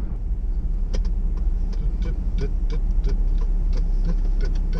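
Car interior noise while driving: a steady low rumble of engine and road, with scattered light ticks and clicks over it.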